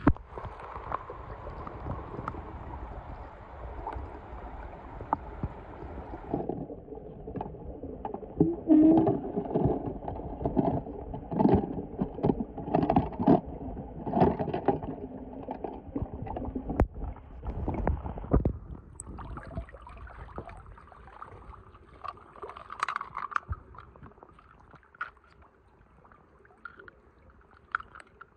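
Water sloshing and splashing as toy cars drop into a pool of water, with irregular knocks of the cars against each other and the container. The splashing is heaviest in the middle and dies down to light clicks near the end.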